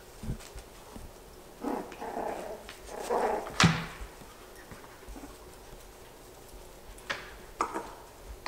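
Yorkshire terrier puppies giving short puppy yaps and growls as they play, in two brief bursts in the first four seconds. A few sharp clicks come in between, the loudest one right after the second burst, and two more near the end.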